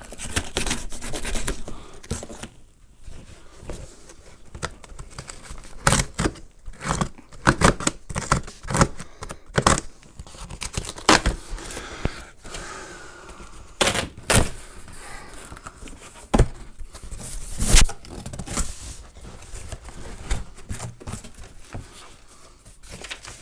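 A large cardboard shipping box being opened: tape slit and torn and the flaps pulled open, with irregular sharp knocks and scrapes of cardboard between stretches of rustling.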